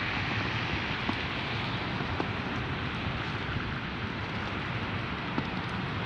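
Steady, rain-like hiss of a city street in a wet snowstorm, with a few faint ticks scattered through it.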